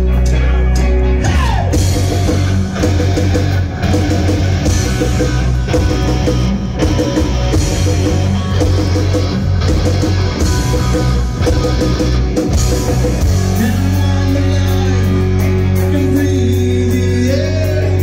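Live rock band playing loud: electric guitar over bass guitar and a drum kit. A busy stretch of quick repeated notes gives way to long held notes about thirteen seconds in.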